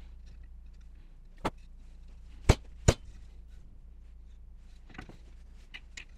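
Sharp knocks of wooden parts, as boards of a dowel-jointed stand are fitted and tapped together: one knock, then two loud knocks about half a second apart, then a few faint clicks near the end.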